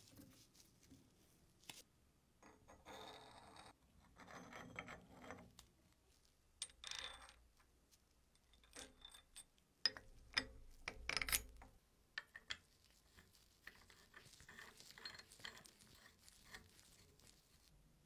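Faint, irregular clicks, taps and short scrapes of small metal parts of an old sugar grinder being handled. The sharpest clicks come a little past the middle, with lighter ticking near the end.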